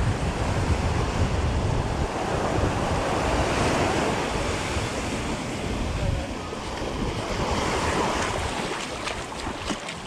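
Small waves breaking and washing up a sandy beach in a continuous wash. Wind buffets the microphone with a low rumble that eases in the second half.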